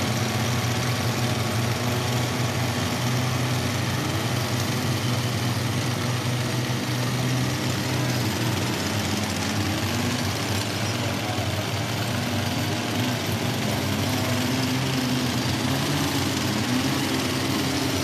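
An engine running steadily with an even, unbroken hum, typical of machinery running at an open-pit jade mine.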